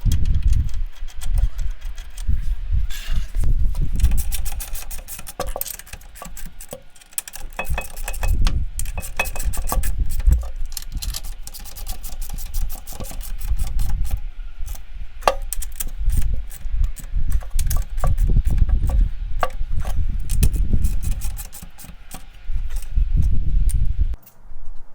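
Workshop handling noise: a long run of irregular metallic clicks, knocks and rubbing, with low rumbles in between, that drops away just before the end.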